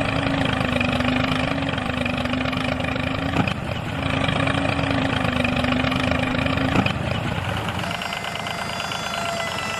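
A mini tractor's small motor running steadily with a hum and a whine. The whine breaks off briefly about three and a half seconds in and stops near seven seconds, while the hum carries on.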